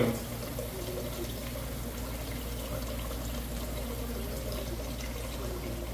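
Kitchen tap running steadily into a stainless steel sink basin.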